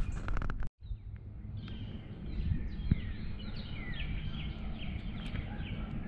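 Songbirds singing outdoors: many short chirps and one bird repeating a brief phrase about three times a second in the middle, over a low rumble of wind and footsteps on gravel. The sound drops out for a moment under a second in.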